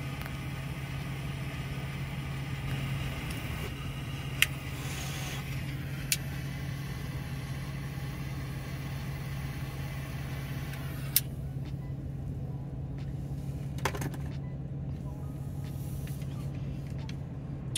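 Steady low hum of an idling car heard inside the cabin, with four sharp clicks spread through it and a faint hiss that stops about eleven seconds in.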